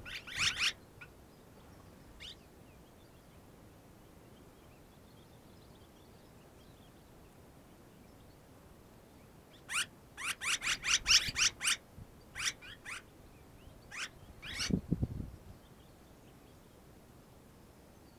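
Red-rumped swallows giving short chirping calls in quick runs. There is a burst at the very start, a longer string of chirps about ten seconds in, and a few more after. A brief low thump comes with the last cluster.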